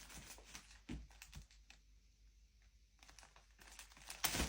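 Rustling and light clicks of packaged baby items being handled and unpacked, with a louder rustle near the end.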